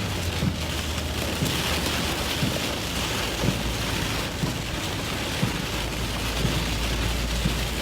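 Heavy rain beating on a moving car's windshield and roof in a supercell's core, over the low steady drone of the vehicle on the road.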